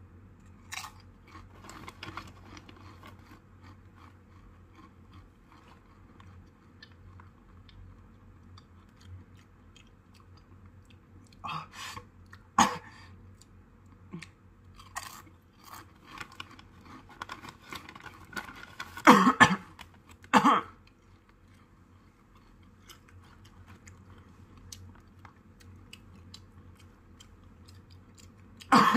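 Someone crunching and chewing a spicy ghost pepper tortilla chip: many small, crisp crunches. A few louder short vocal outbursts come partway through, and another right at the end.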